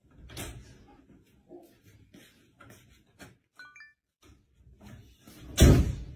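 Footsteps scuffing on a tiled floor, with a few brief high squeaks about three and a half seconds in and a single loud thump near the end.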